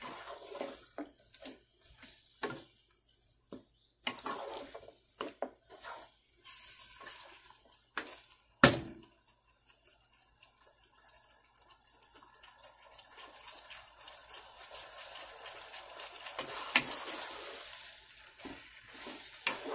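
Mutton and potato curry frying in a nonstick pan while a spatula stirs it: wet squelching and scraping with scattered clicks and one sharp knock of the spatula about nine seconds in, then a steady wet sizzle that builds in the second half.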